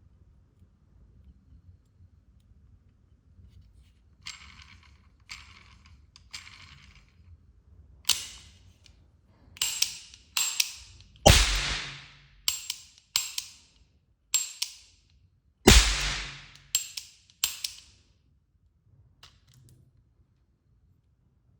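Toy gun being fired repeatedly. First come three softer pops a second apart, then about ten sharp cracks at uneven intervals, the two loudest near the middle, before it stops.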